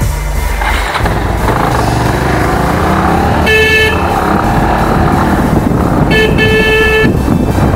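Two-wheeler riding along a street with steady engine and road noise. A vehicle horn honks twice: a short toot about three and a half seconds in, then a quick blip and a longer toot about six seconds in.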